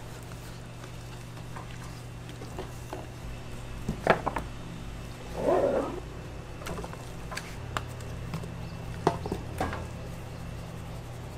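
Handling a rack of raw pork spare ribs: scattered light clicks and knocks, with one louder, short slap of the meat onto a stainless steel pan about five and a half seconds in, over a steady low hum.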